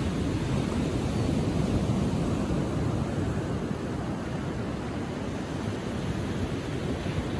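Ocean surf washing onto a sandy beach at low tide: a steady rush of breaking waves, heaviest at the low end, with no single wave standing out.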